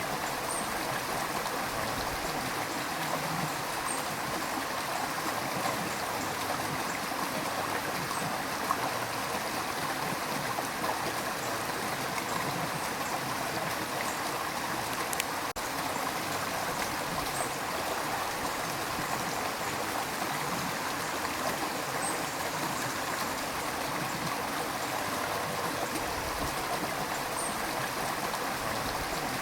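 River water rushing and gurgling in a steady, even flow.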